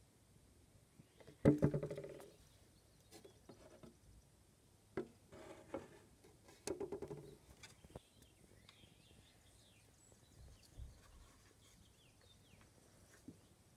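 Polistes dorsalis paper wasp buzzing her wings in three short bursts inside a plastic insect box, the first the loudest, with light taps in between. Faint bird chirps follow in the later part.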